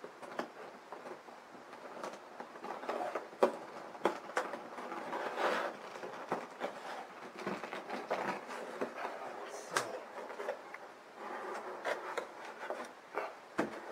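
Cardboard box being handled and its lid slid off, with card rubbing and scraping and a scatter of small knocks and rustles.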